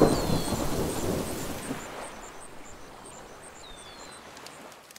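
A deep rumbling whoosh, loudest at the start and fading away over the few seconds. Faint high chirps come twice over a light, regular high ticking.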